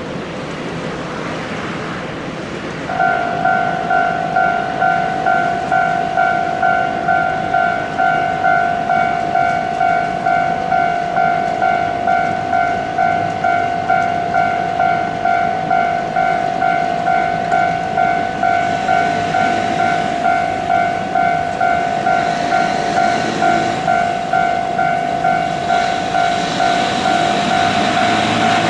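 Japanese level-crossing warning bell switches on about three seconds in and rings steadily, an electronic clanging tone repeating about one and a half times a second, the signal that the crossing is closing. Rushing vehicle noise grows louder underneath it near the end.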